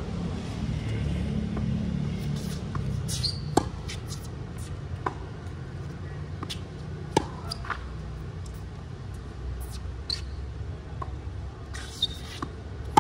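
Tennis rally: several sharp pops of the ball off racket strings and court, a few seconds apart, the last coming with the near player's forehand. Under them runs a steady low rumble of city traffic.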